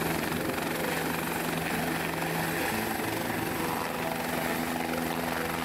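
Light single-rotor helicopter lifting off and flying close by: a steady rotor and engine noise, with a low hum that steps up slightly in pitch partway through.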